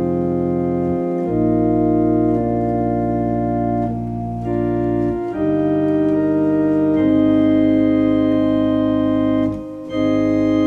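Viscount Sonus 60 physically modelled digital organ playing slow, sustained chords on the swell flutes at 8 and 4 foot with the diapason added, over a low bass line. The chords change every second or two, with a brief break near the end.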